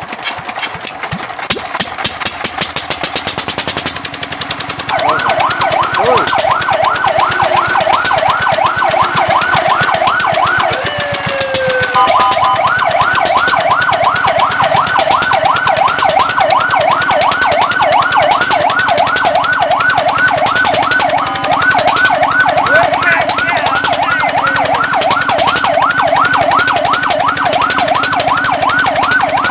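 Fire truck siren on a rapid yelp, its pitch sweeping up and down several times a second, cutting in about five seconds in after a stretch of noise. Near the middle it briefly glides down and breaks off, then the yelp picks up again.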